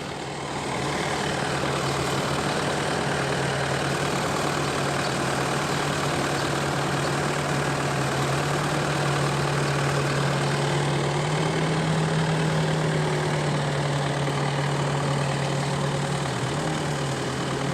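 Tractor diesel engine running steadily, getting louder about a second in; its pitch rises slightly around the middle and drops a little near the end.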